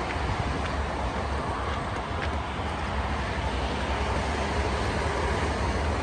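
Steady traffic noise from a multi-lane toll road: a continuous rumble of passing vehicles with a deep low hum underneath.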